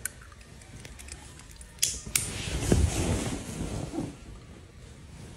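A few soft clicks, about two seconds in, and light rustling over quiet room tone.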